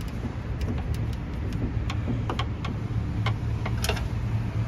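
Irregular light clicks and taps of a screwdriver and metal fittings being worked on the sheet-metal back of an LED TV panel, one sharper click nearly four seconds in, over a steady low rumble.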